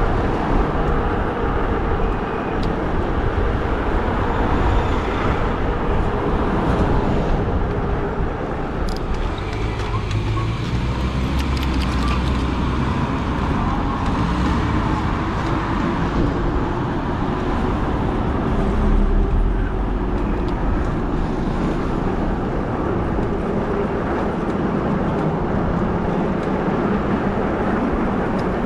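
Steady road noise from riding a modded fat-tire e-bike in traffic: tyre and wind rumble with a faint whine that drifts slowly in pitch, and cars passing.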